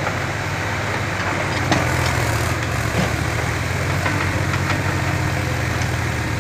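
Diesel engines of a backhoe loader and a farm tractor running steadily with a deep low rumble, under load as the tractor hauls its loaded trolley out of mud.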